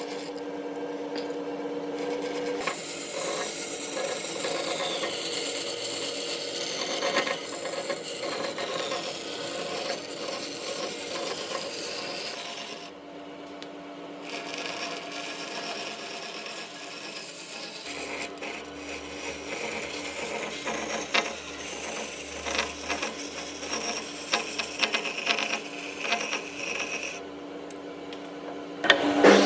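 Wood being worked with tools: rubbing and scraping with scattered clicks over a steady machine hum, broken by short pauses.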